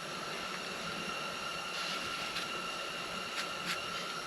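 A few short scratching strokes of a marker on steel plate, marking where a piece sits, starting about two seconds in, over a steady hiss with a faint high whine.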